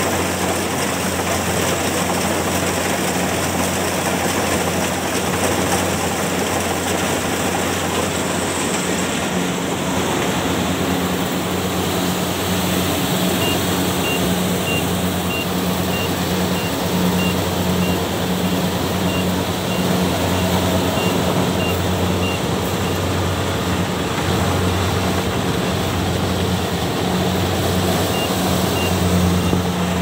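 Kubota rice combine harvester running steadily under load: a continuous engine hum mixed with the clatter of its cutting, threshing and conveying machinery as it harvests rice.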